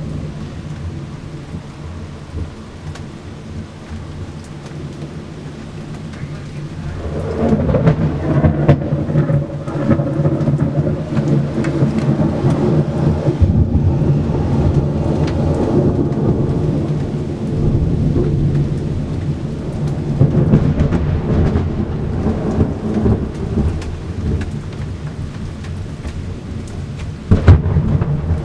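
Thunderstorm: steady rain falling, with a long rumble of thunder rolling in about seven seconds in and lasting some fifteen seconds, then a sudden loud clap near the end.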